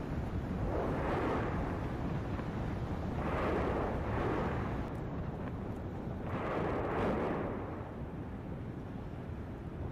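Klyuchevskaya Sopka volcano erupting: a steady low rumble with surges of louder noise about every three seconds.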